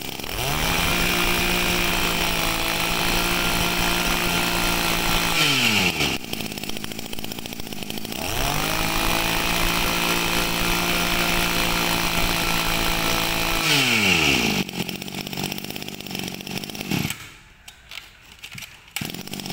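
Shindaiwa 23cc two-stroke brush cutter engine running, revved to full throttle and held for about five seconds twice, with the pitch falling back to idle after each. It idles briefly, then is switched off about 17 seconds in.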